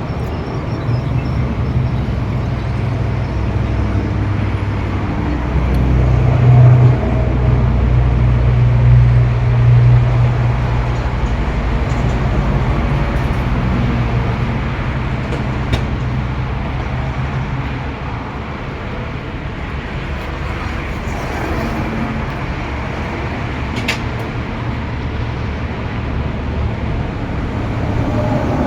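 Road traffic going past: a vehicle's engine rumble swells, is loudest from about six to ten seconds in, then eases to a steady background drone.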